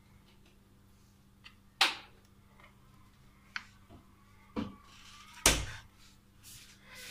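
Kitchen knife cutting raw beef into small pieces on a cutting board: a few sharp knocks as the blade meets the board, the loudest about two seconds in and about five and a half seconds in, over a faint steady hum.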